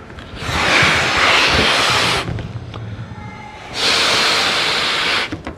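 Air being blown into a rubber balloon with a metal nut inside, in two long rushing pushes, the second starting a little under four seconds in.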